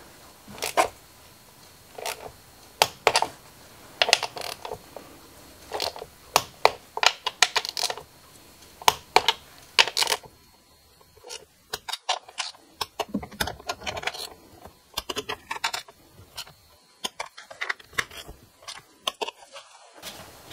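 Torque wrench ratcheting as the ignition coil nuts are tightened to 10 newton metres: irregular bursts of sharp metallic clicks, quicker and lighter in the second half.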